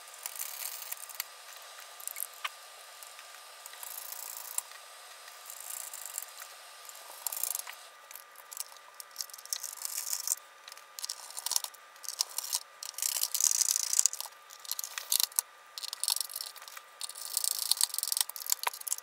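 Small screwdriver turning screws into the plastic case of an HP-97 calculator, making irregular scratchy clicks and scraping.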